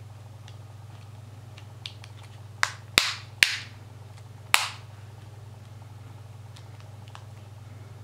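Plastic rear frame of a Samsung Galaxy S2 snapping onto the phone under finger pressure: four sharp clicks between about two and five seconds in, with a few faint ticks around them, over a steady low hum.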